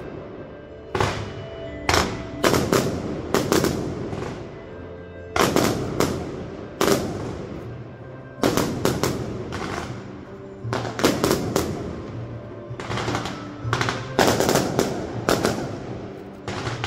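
Aerial fireworks shells bursting: more than a dozen sharp bangs in irregular clusters, each fading away in a rumble, over background music.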